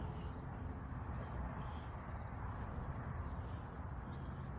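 Steady low background hum and hiss, with a few faint light clicks.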